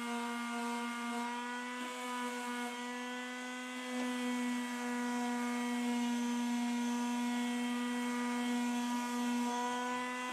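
Electric palm sander running with a steady, even hum, a little louder from about four seconds in, as it sands a 3D-printed plastic body.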